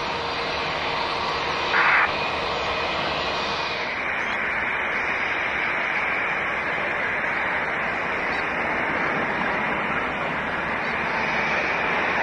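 Airbus A330 jet engines heard from the ground: first the airliner rolling out just after touchdown, then, about four seconds in, a switch to another A330's engines running steadily on final approach. There is a brief loud burst about two seconds in.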